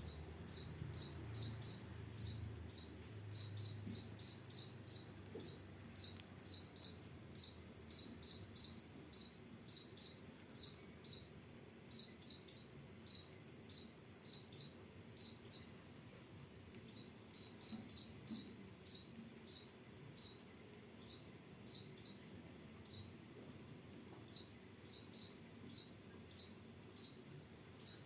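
Kolibri ninja sunbird calling: short, high chirps repeated about twice a second, pausing briefly a couple of times.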